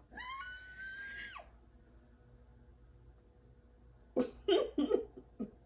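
A woman's high-pitched squeal of emotion, about a second and a half long, rising, held, then falling off. A few short, low vocal sounds follow near the end.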